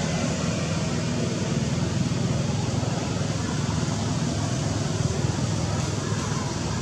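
Steady low rumble with a hiss over it, unbroken and without any distinct calls or knocks.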